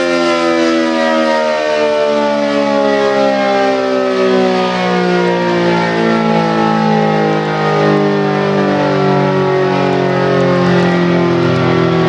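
ACA Allertor 125 civil defense (tornado) siren sounding loudly during a test, its tone falling slowly and steadily in pitch as it winds down.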